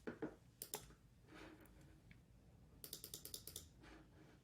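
Faint clicks of typing on a computer keyboard: two single keystrokes early, then a quick run of about eight near three seconds in. This is typical of a new resistance value being entered on a ventilator simulator.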